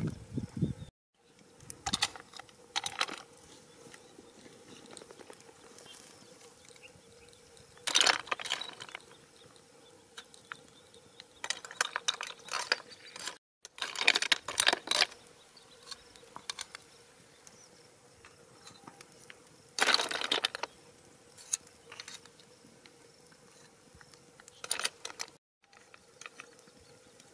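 Metal tongs clinking and scraping against a wire grill rack and snail shells, in short scattered bursts of clatter, over a faint steady hum.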